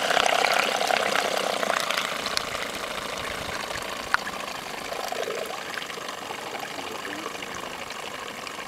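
Radio-controlled model steam paddle steamer running on the water: a steady watery hiss and churn from its paddle wheels and steam plant, fading as the boat draws away. A short click about four seconds in and a sharper click at the end.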